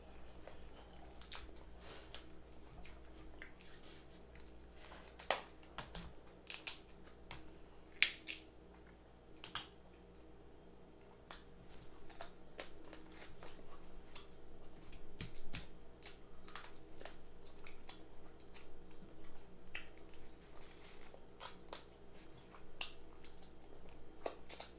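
Crab legs being eaten up close: irregular sharp cracks and snaps of the shells being broken, loudest about a third of the way in, with chewing and lip-smacking between them.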